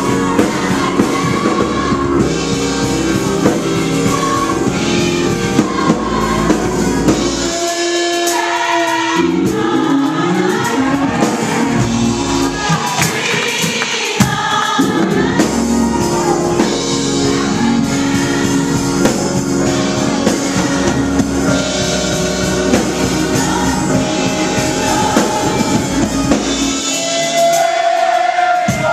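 Live gospel music: voices singing together over a church band of organ, electric keyboard and drum kit, the bass briefly dropping out twice.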